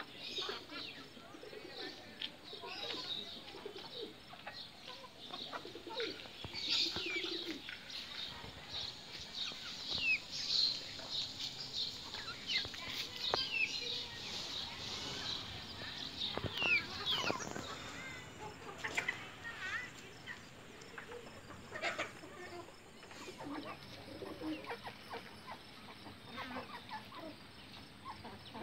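Backyard chickens and other birds calling: many short, high chirps that glide up or down, busiest through the middle, with a few lower clucks.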